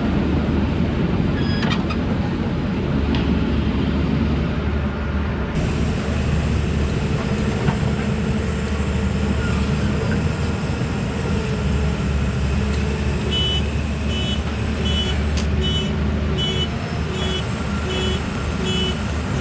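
Diesel engine of a JCB 3CX backhoe loader running steadily under work. About two-thirds of the way through, a reversing alarm starts beeping, a little faster than once a second.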